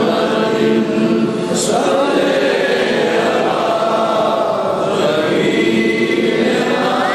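A man's voice chanting a devotional zikr invocation into a microphone, in long, melodic held notes with slow wavering turns.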